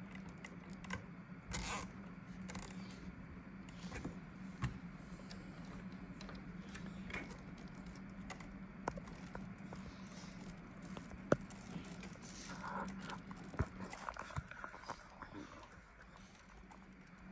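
Quiet handling of fan cables and plastic zip ties: scattered small clicks and rustles over a steady low hum.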